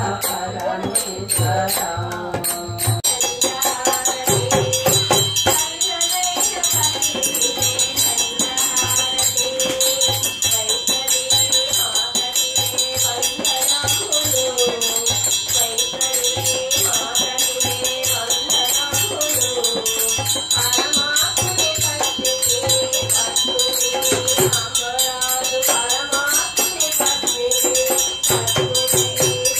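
Hindu devotional bhajan: women singing a continuous melody over a steady beat of jingling percussion and a low drum.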